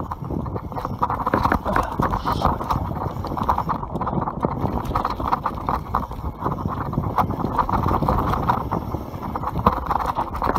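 YT Capra enduro mountain bike descending rough forest singletrack at speed: a constant rush of tyre and wind noise, with many quick sharp knocks and rattles as the bike hits rocks and roots.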